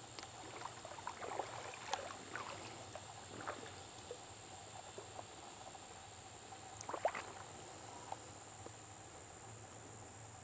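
Steady high-pitched insect chirring, with scattered faint clicks and knocks, the loudest about seven seconds in.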